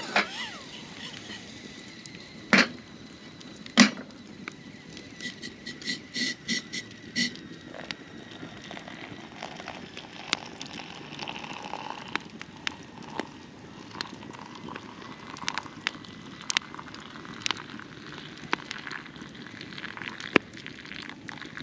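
Campfire crackling and popping, with many sharp clicks scattered through and a few louder knocks in the first few seconds.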